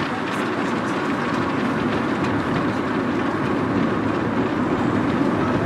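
Footsteps of a large pack of road runners, many feet striking tarmac in a dense, steady clatter.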